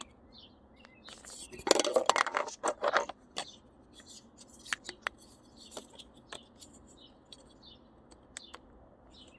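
Plastic shifter parts being handled and worked into place by hand: a quick flurry of clicks and rattles about two seconds in, then scattered light ticks and taps. Faint bird chirps in the background.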